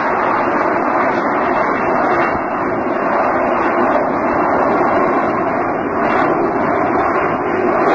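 A Harrier jump jet hovering. Its Rolls-Royce Pegasus vectored-thrust turbofan makes a loud, steady jet noise with no change in pitch.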